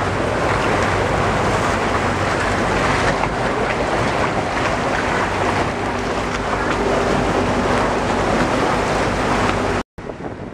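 Motorboat running fast along a canal: loud rushing of churned water along the hull, with wind buffeting the microphone and the steady hum of the engine underneath. It cuts off suddenly near the end.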